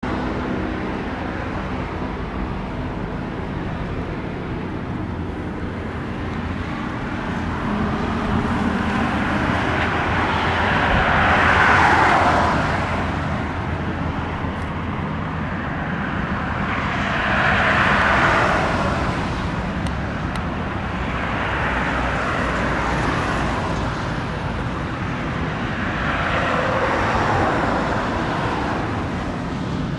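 Road traffic on the adjacent road: a steady low rumble with vehicles passing one after another, each swelling and fading over a few seconds, about four times.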